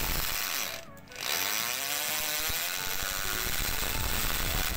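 INGCO 680 W 13 mm electric impact drill running free in the air with hammer mode switched on. It is briefly let off about a second in, then spins back up to a steady full-speed whine. The running sound is smooth, not rough.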